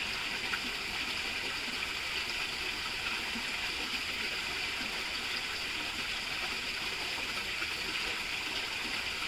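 Water pouring steadily through a concrete culvert and splashing into the pool below, an even, unbroken hiss.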